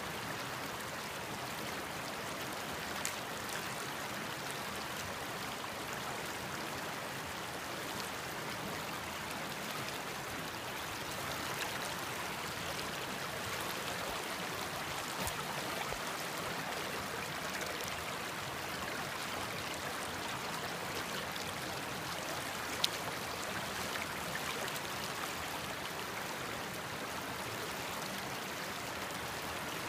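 Creek water rushing steadily over rocks and small rapids. Two brief sharp clicks cut through it, one a few seconds in and a louder one about three-quarters of the way through.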